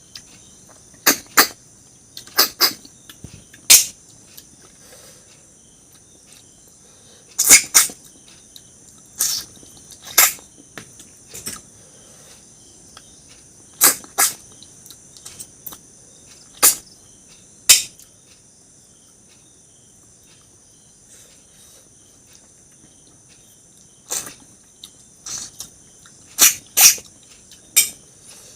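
Close-miked eating sounds: sharp, irregular smacks and crunches of chewing and sucking, coming in clusters with pauses between. A steady high-pitched insect chirring runs underneath.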